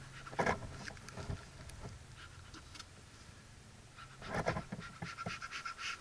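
Footsteps on dry, stony dirt, with scattered scuffs and knocks. About four seconds in, a quick run of short sounds begins over a faint steady high tone.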